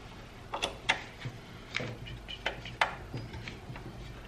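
Irregular sharp clicks and taps, about six in all, of small screws and a hand tool being worked while fastening parts together.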